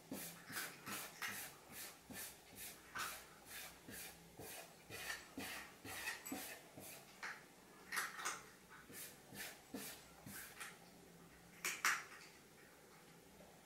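A ginger tabby cat's claws scratching at a wood-grain door in quick repeated strokes, about three a second, with a louder pair near the end. This is food-burying pawing: the cat is rejecting its food and trying to cover it.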